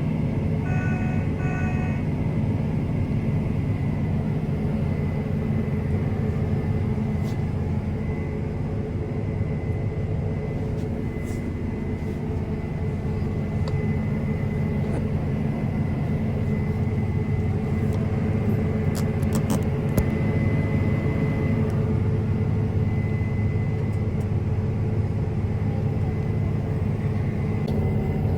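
Combine harvester's diesel engine running steadily under load while unloading grain, with a thin steady whine above the rumble. Two short beeps sound about a second in.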